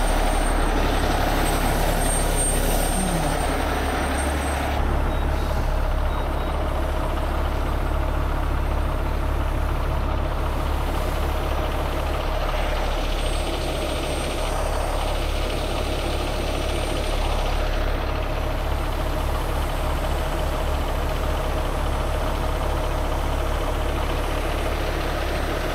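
Heavy diesel trucks idling: a steady low engine rumble that holds level throughout, with no sharp events.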